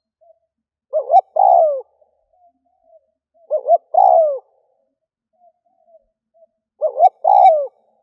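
Spotted dove cooing: three phrases a few seconds apart, each a quick double note followed by a longer note that falls in pitch. Fainter short calls sound between the phrases.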